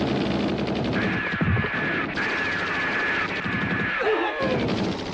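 Cartoon machine-gun sound effect: rapid, continuous submachine-gun fire, with high falling whines over it from about a second in.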